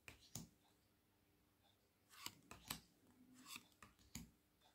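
Faint handling of small square tarot cards: a few soft clicks and slides as cards are taken off the stack and laid on a pile, most of them in the second half.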